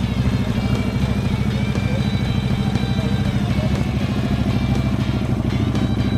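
KTM RC8 1190's V-twin engine idling steadily, with a fast even pulse.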